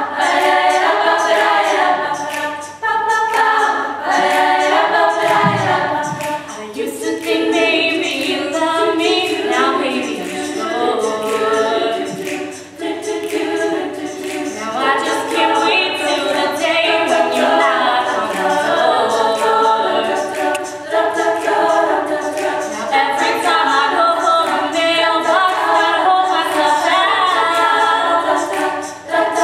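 Women's a cappella group singing: a solo voice at the microphone over backing voices, with a steady clicking beat.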